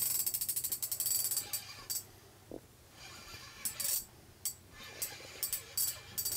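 Ice-fishing reel being cranked, a fast ratchet-like ticking in spurts that stops and starts as a fish is reeled up the hole.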